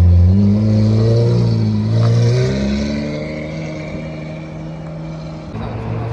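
A car engine pulling away, its note climbing twice as it accelerates, then fading as it leaves. Near the end another engine runs steadily close by.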